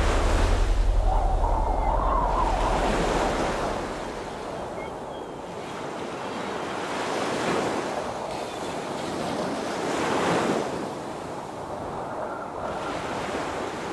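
Ocean surf, waves swelling and breaking in slow surges, with wind. A low steady hum under it stops about three seconds in.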